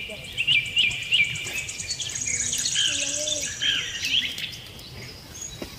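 Wild birds chirping: short sharp chirps about three a second at first, then more varied falling chirps. Under them runs a fast, high-pitched insect trill that stops about four seconds in.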